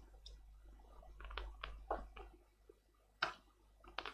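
Faint clicks, taps and light scraping of small tools and tablet parts being handled on a workbench, a run of small ticks in the middle and a sharper click a little after three seconds in.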